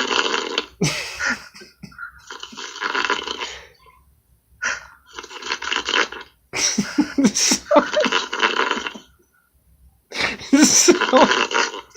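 A man snoring heavily in his sleep, heard over a Skype call, with one loud rasping snore every two to three seconds.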